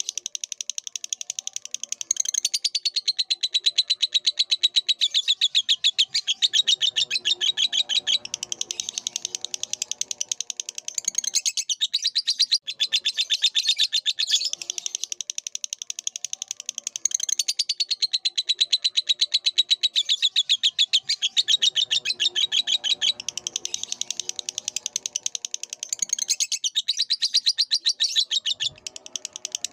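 Lovebird singing a long, rapid chattering trill of high chirps, breaking off briefly about twelve seconds in and again near the end.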